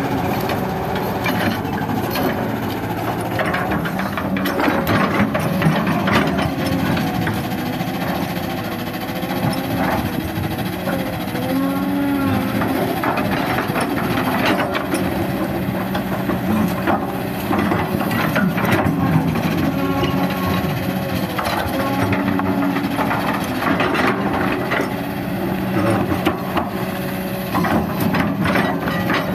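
Kobelco SK200 hydraulic excavator working under load, its diesel engine running steadily with the pitch rising and falling as it digs. The bucket scrapes through rocky soil, with repeated knocks of stones against the bucket.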